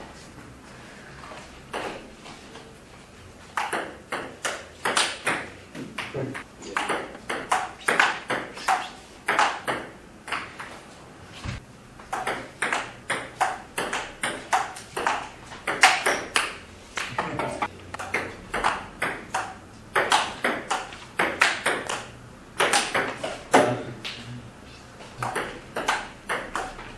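Table tennis ball being hit back and forth, clicking off the paddles and bouncing on the table at about two to three hits a second. The clicks start about three and a half seconds in and come in rallies with short pauses between points.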